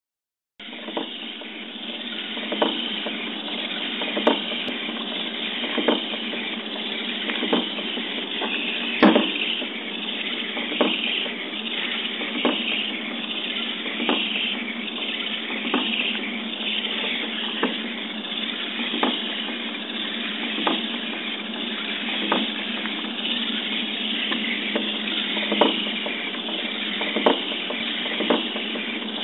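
Hobby RC servos of a three-module 3D-printed snake robot whirring steadily as it undulates, with a regular click or knock about every one and a half seconds.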